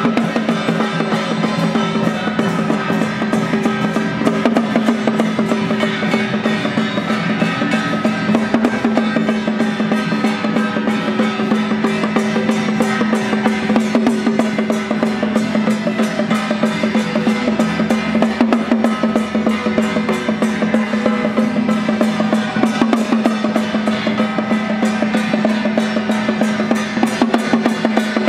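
Traditional Taiwanese temple-festival percussion: a small drum in a carried wooden frame beaten in a fast, continuous pattern, with several handheld bronze gongs struck in time and ringing.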